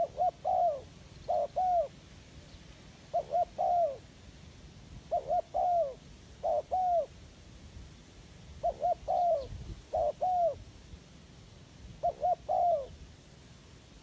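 Spotted dove cooing over and over, each phrase two or three quick coos, the last one falling, repeated every one to two seconds.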